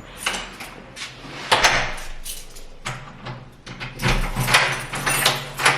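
A door being opened and closed, with a series of clicks and knocks.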